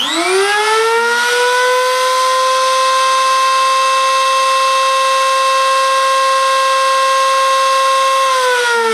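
Brushed-motor wood router, used as the CNC machine's spindle, switched on at full speed. Its very loud high whine rises quickly as the motor spins up and then holds steady. About eight seconds in it is switched off, and the whine falls in pitch as the motor winds down.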